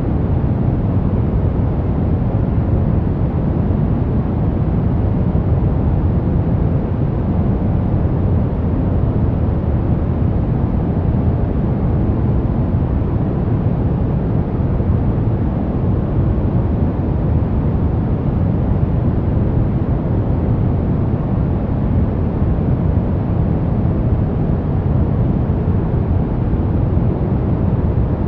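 Continuous white noise for masking and sleep: an even, unchanging rush with most of its weight in the low end, so it sounds deep rather than hissy.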